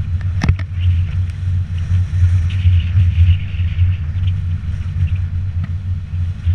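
Steady low rumble of an action camera travelling along a road, the wind and travel noise of the moving ride, with one sharp click about half a second in.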